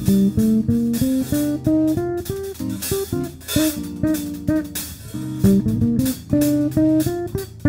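Background music: a melody of quick plucked guitar notes stepping up and down over a bass line.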